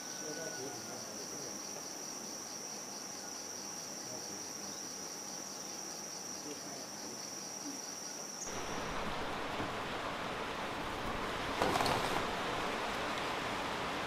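Insects trill in one steady high-pitched note for about eight seconds. Then the sound cuts to an even hiss of falling rain, with one brief sharp knock near the end.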